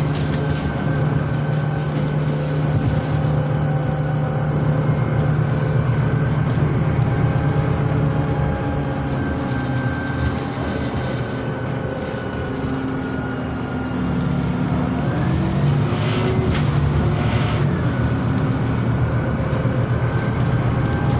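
Scania CityWide LF 18 compressed-natural-gas articulated bus heard from inside the passenger cabin while under way: the engine and drivetrain run with a steady hum over road noise. About fourteen seconds in the engine note drops, then climbs again, with a short knock a couple of seconds later.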